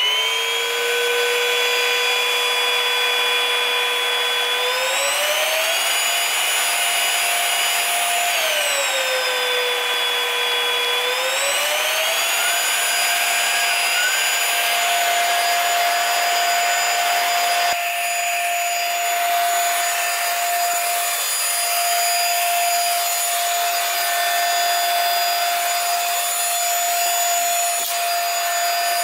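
QOUTOO cordless stick vacuum's motor running with a steady high whine. Its pitch glides up about five seconds in, back down around nine seconds, and up again around twelve seconds as the power mode is switched with the button, then holds at the higher speed.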